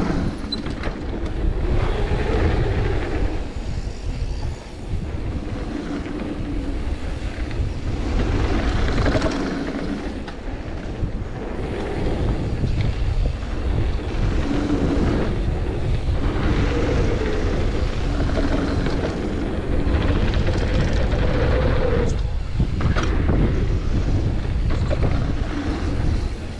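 Downhill mountain bike ridden fast on a packed-dirt jump line: knobby tyres rolling and wind buffeting the helmet-camera microphone, with a few sharp knocks from the bike over bumps and landings.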